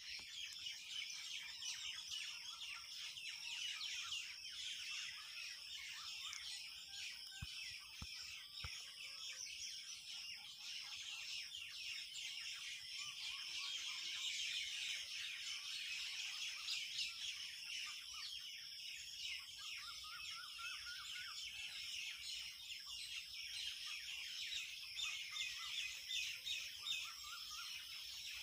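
Quail calling: a dense, unbroken chatter of many overlapping high chirps.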